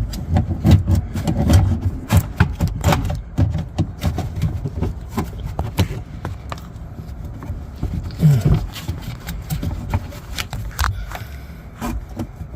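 Irregular clicks, taps and light scraping of hand tools prying at a plastic clip inside a truck door, working the stubborn clip loose.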